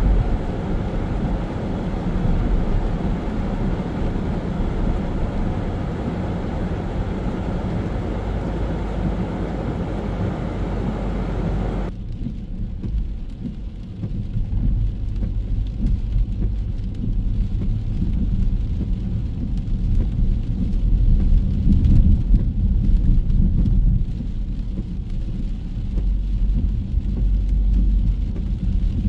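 Rainy city street ambience: traffic and rain hiss over a heavy low rumble. About twelve seconds in the hiss drops away abruptly, and the low rumble carries on, swelling loudest past the middle.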